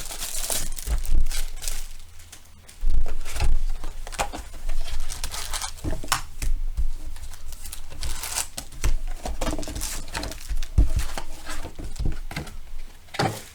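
Tough plastic shrink-wrap being torn and crinkled off a sealed trading-card box, in irregular crackles and rustles with the odd thump of the box being handled.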